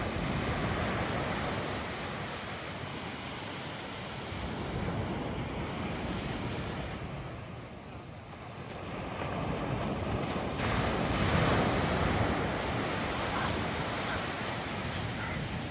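Small ocean waves breaking and washing up a sandy beach. The surf swells and ebbs, loudest about eleven seconds in, with wind buffeting the microphone.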